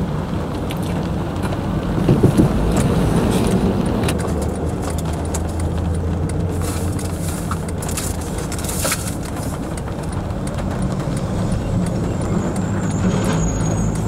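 Inside a car stopped in the rain: a steady low hum of the idling car with scattered light taps of raindrops on the windshield, and other cars passing on the wet road, one close by about two seconds in.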